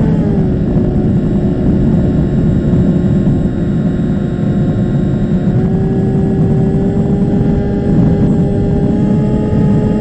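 Electric motor and propeller of an RC flying wing, heard from its onboard camera: a steady whine under heavy wind rush. The whine drops in pitch just after the start, then steps up about halfway through and again near the end as the throttle changes.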